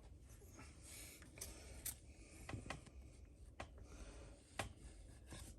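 Faint handling of Yu-Gi-Oh trading cards: soft rustling with a few light clicks as the cards are slid and flipped against each other.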